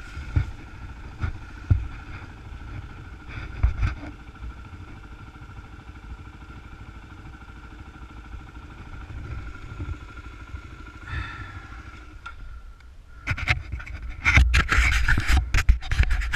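Dirt bike engine idling steadily, with scattered knocks and scrapes. Near the end it gives way to loud, rough noise.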